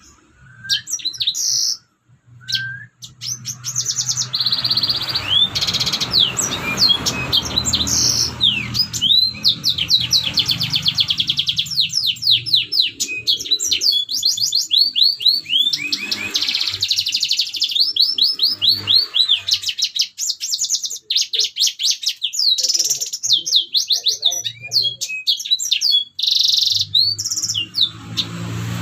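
Red siskin singing a long, near-continuous twittering song of rapid trills and quick sweeping notes, with brief pauses.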